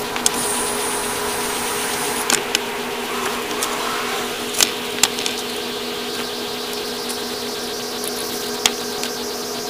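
A steady low buzzing hum with scattered sharp clicks and taps as paper stencils and card masks are laid on and lifted off a canvas. A short high hiss runs for about the first two seconds.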